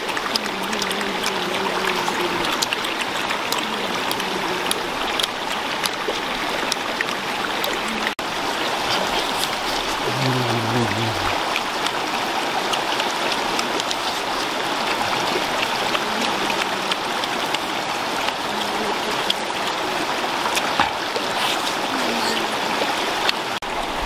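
Shallow rocky stream running over stones, a steady rushing of water.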